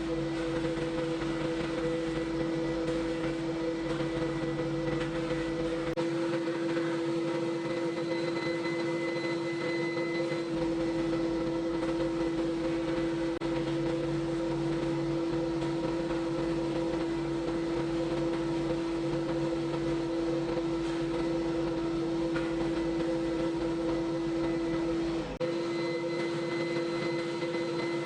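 A machine running steadily with a constant hum and a noisy hiss under it, with small shifts in its low end a few times.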